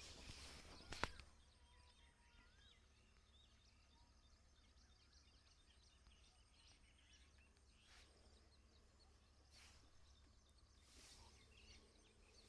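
Near silence with faint bird chirps in the background and a single sharp click about a second in.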